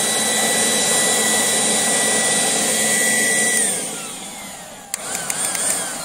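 Battery-powered cordless leaf blower running at full speed, a steady rush of air with a high electric-motor whine. About three and a half seconds in it is let off and winds down with falling pitch, then a click and a brief second burst near the end.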